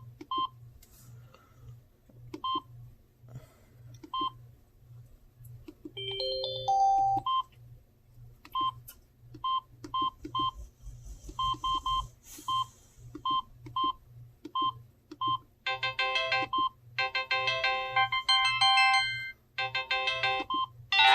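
Samsung SGH-T309 flip phone playing a ringtone: short, evenly repeated electronic beeps with a quick rising run of notes about six seconds in, turning into a fuller many-note melody from about sixteen seconds.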